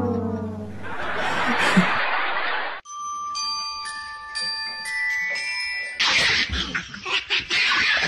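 A falling, horn-like tone fades out, followed by a short hiss. About three seconds in, a run of bright chime notes like a glockenspiel plays for about three seconds, and a rough, noisy stretch follows near the end.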